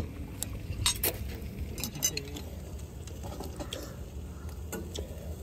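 Scattered light clinks and clicks of metal forks, spoons and kitchen scissors against stainless steel bowls during a meal, a few sharp taps about a second apart.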